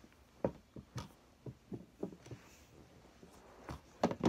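Scattered light knocks and taps of objects being handled, loudest near the end as a clear plastic football display case is lifted and gripped.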